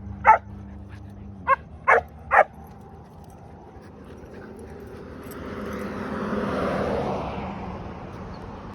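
A dog barking in short, sharp barks, four times in the first two and a half seconds, followed by a rush of noise that swells and fades around six to seven seconds in.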